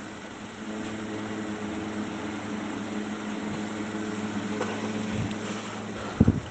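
Steady machine hum with a faint hiss behind it. Two quick low thumps come near the end.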